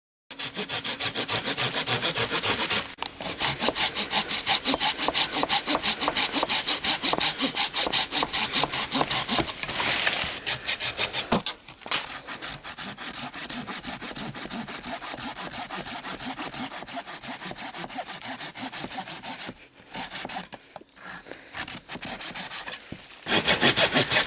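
Wicked Tough folding handsaw's hardened high-carbon steel blade sawing through wood in fast back-and-forth strokes, about four or five a second. Short pauses break the strokes into runs, with a quieter run through the middle and louder strokes again near the end.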